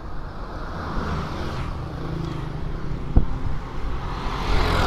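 Road traffic passing close to a moving bicycle: a car going by about a second in, and another vehicle growing louder near the end, over a steady low rumble. A single sharp knock about three seconds in.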